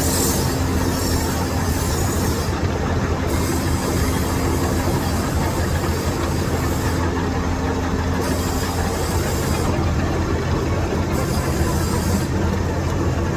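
Metal lathe running while turning hardened steel with a cubic boron nitride insert: a steady machine hum under a high hiss that cuts out for about a second four times.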